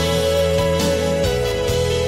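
Background music: a held melody note over sustained bass notes, stepping down slightly in pitch about halfway through.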